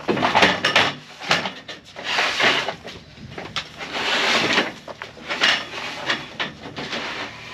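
Lengths of solar panel mounting rail slid in over a plywood and timber floor, with long scrapes and sharp knocks and clatters as they go in.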